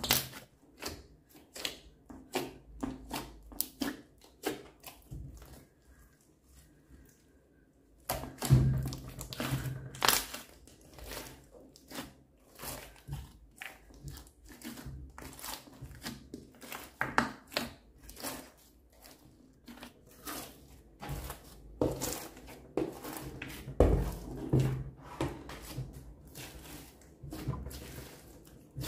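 A large mass of bead-studded slime being squeezed and kneaded by hand, giving irregular wet clicks, crackles and squelches as air pockets pop. It goes quieter for a couple of seconds, then picks up louder again about eight seconds in.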